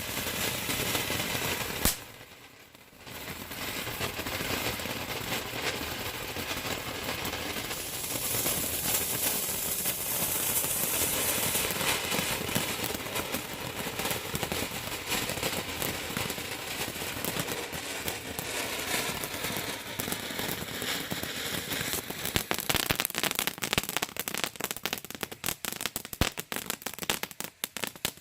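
A large firework going off: a sharp bang about two seconds in, then a long continuous spraying hiss with crackle. It turns into rapid, dense crackling pops over the last several seconds.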